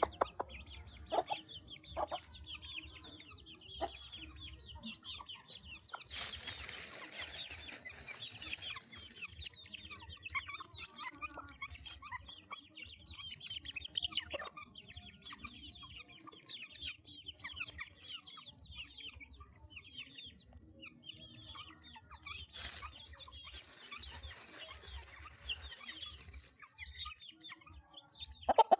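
A flock of Índio Gigante chicks peeping: many short, high peeps overlapping without pause, with a few lower clucks among them. A rustling hiss comes in about six seconds in for a few seconds.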